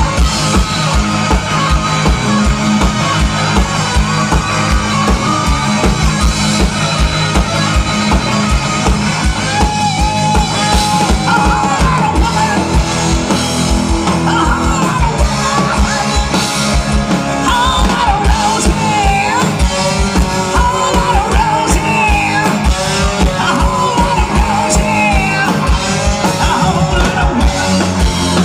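Live rock band playing: electric guitar, bass and a steady, fast drum beat, with a singer's voice over the top.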